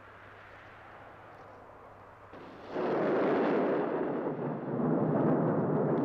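Avalanche of snow and rock rushing down a mountainside. It sets in suddenly over a low hiss about two and a half seconds in as a loud, dense rushing noise, dips briefly, then swells again.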